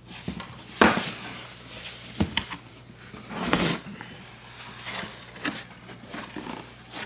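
A cardboard box and its packaging being handled and opened: a string of knocks, clicks and rustles, the loudest a sharp knock just under a second in.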